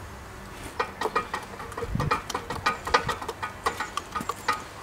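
A quick run of light clicks and clinks, each with a brief ringing note, as small plastic paint pots and a paintbrush are knocked together on an easel tray. There is a single low thump about two seconds in.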